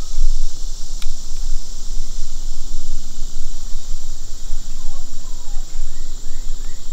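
A steady high-pitched insect chorus, like crickets, over a strong low rumble such as wind on the microphone. A faint click comes about a second in, and a bird chirps a run of short notes near the end.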